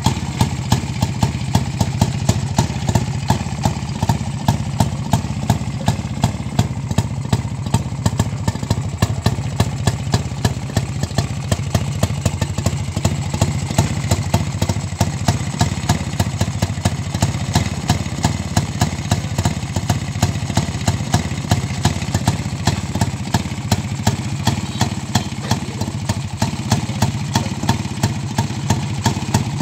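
Modified Rajdoot motorcycle engine idling steadily, with a regular sharp beat from the exhaust a few times a second.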